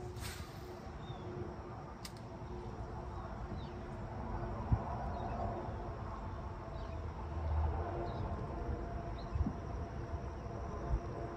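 Steady outdoor background: a low rumble and hiss, with faint short high chirps scattered through and a few light clicks.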